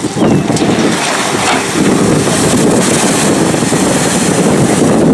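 Amphibious tour bus driving into and ploughing through water, throwing up a splashing bow wave, under heavy wind buffeting on the microphone; loud and steady throughout.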